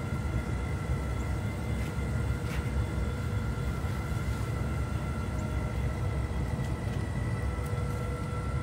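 A motor running steadily: a low rumble with a faint high whine above it, and a few light clicks.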